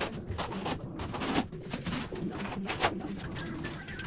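Trowel scraping and spreading tile adhesive across a wall, several rough strokes about a second apart.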